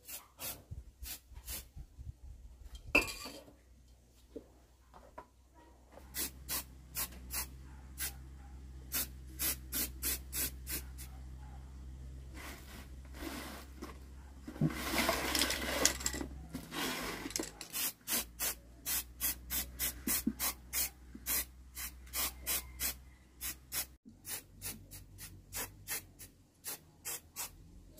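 Quick rubbing strokes on chainsaw parts, about three a second. Just past the middle comes the hiss of an aerosol spray can, lasting about two seconds.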